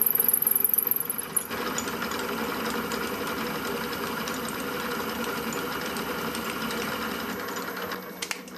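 Milling machine spindle running a long twist drill bit used as an end mill, side-cutting the edge of a metal block. The cut gives a steady mechanical cutting noise with a high whine that stops about a second and a half in, and the cutting tapers off near the end. The drill cuts better than expected for a tool not made for milling.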